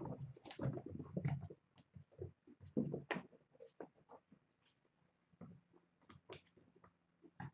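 Kittens scampering and pouncing in play: irregular thumps and scuffles, busiest in the first second and a half and again around three seconds in, then sparser.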